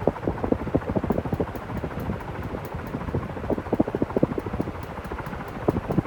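KDK 56-inch industrial ceiling fan (model B56X5) running, with a rapid, uneven clicking rattle over the steady whoosh of the motor and blades.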